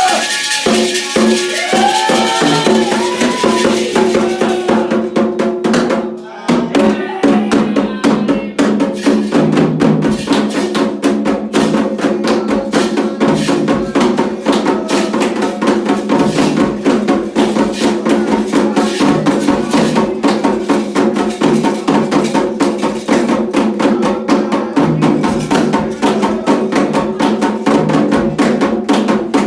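Candomblé ritual percussion: atabaque hand drums and an agogô bell playing a fast, steady rhythm. A sung voice is heard over the first few seconds. The playing dips briefly about six seconds in, then comes back in full.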